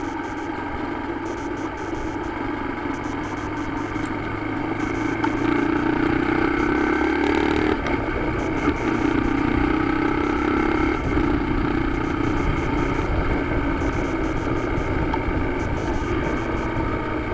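Motorcycle engine running while the bike rides in town traffic, getting louder from about four seconds in as it speeds up, with two brief breaks in the engine note a few seconds apart.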